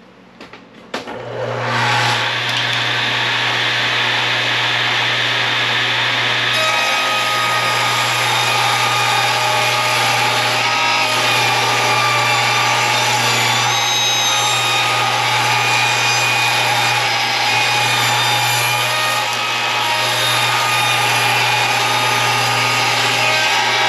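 Table saw ripping a long softwood board lengthwise. The saw starts up about a second in after a few clicks and runs at a steady pitch, and from about six seconds in the blade is cutting through the wood without a break.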